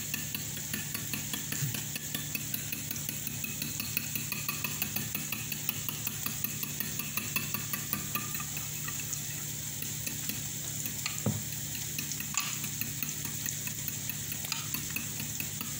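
Metal spoon beating eggs in a glass bowl, with repeated light clicks of the spoon against the glass and a couple of sharper knocks, over a steady sizzle of onions frying in a pan.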